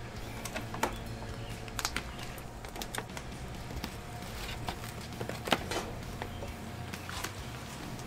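Scattered small clicks and taps of a person eating pizza: chewing, and hands tearing slices and touching a cardboard pizza box. A steady low hum runs underneath.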